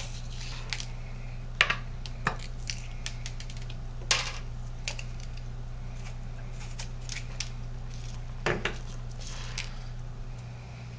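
Irregular light clicks and clacks of shotgun shells being handled and set down during wax-slug reloading, a few knocks louder than the rest, over a steady low hum.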